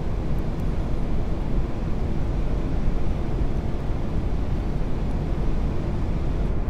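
Steady cockpit noise of an Airbus A380 on final approach: a low, even rush of airflow and engine noise with the gear down and flaps full.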